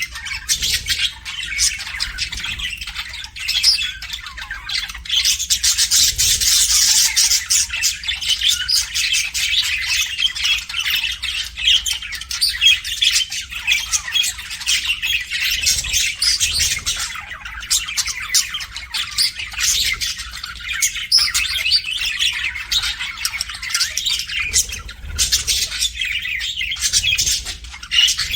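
Pet budgerigars chirping and chattering nonstop, dense rapid warbles and squawks.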